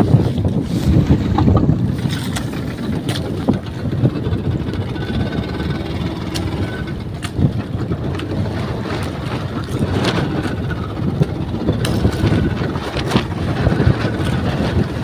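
Wind buffeting the microphone on an open fishing boat at sea, a steady rough rumble with a few scattered clicks.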